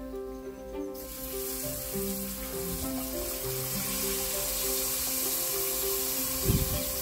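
Spiced curry liquid poured into a hot clay pot of seasoning, sizzling from about a second in, over background music.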